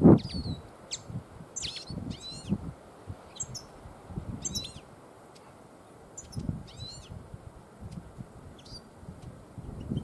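Small songbird chirping: short high calls about once a second, some in quick little clusters, over a faint low rustle.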